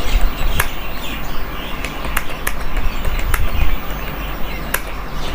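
Computer keyboard keys clicking irregularly during a typing test, with birds chirping in the background.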